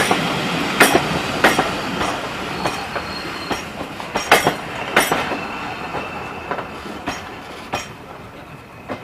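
Arriving passenger train's wheels rolling slowly over rail joints, with irregular clicks and clacks and a brief high wheel squeal about three seconds in, fading as the train slows into the platform.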